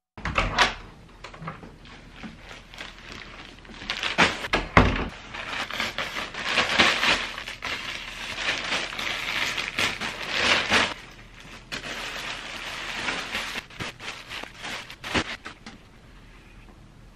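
Plastic mailer bag crinkling and rustling in bursts as clothes are pulled out of it, with a few sharp knocks; the rustling dies down near the end.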